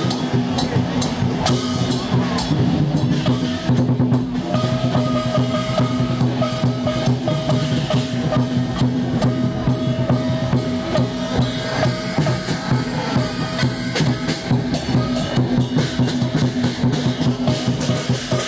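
Chinese procession percussion: a drum and cymbals beaten in a quick, steady rhythm. A held, slightly wavering note comes in about four seconds in.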